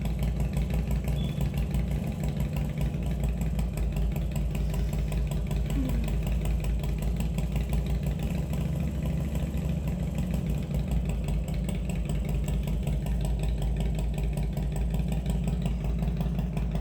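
Motorcycle engine idling steadily with a deep, even rumble.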